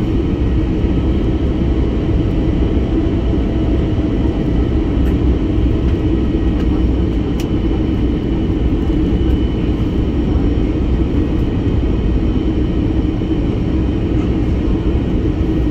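Steady cabin noise of an Airbus A320neo on approach, engines and rushing airflow heard from a window seat over the wing, with a faint steady whine above the low rumble.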